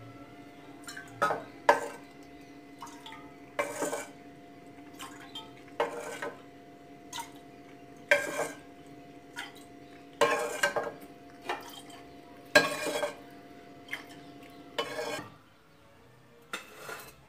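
Steel ladle scooping frying oil out of a nonstick frying pan, clinking and scraping against the metal every second or two.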